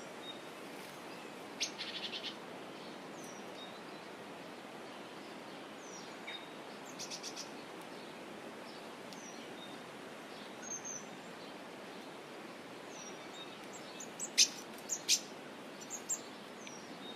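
Wild birds chirping in short, high calls and quick runs of notes, scattered through a steady background hiss, with the loudest chirps near the end.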